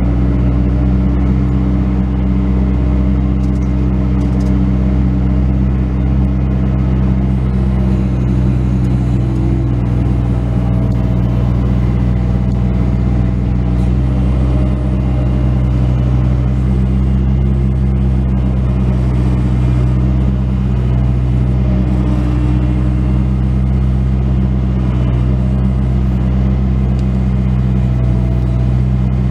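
A Bobcat S185 skid steer's diesel engine running steadily at a constant speed.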